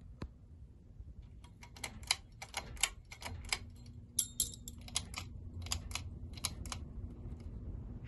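Quorum Pinwheel ceiling fan running with a low rumble, under a quick, irregular run of sharp clicks and ticks. A steady hum sets in about three seconds in.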